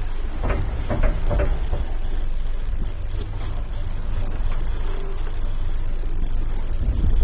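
A 1910 Maschinenfabrik Wiesbaden elevator running, its car riding on wooden guide rails with a steady low rumble, and a few clicks and knocks about a second in.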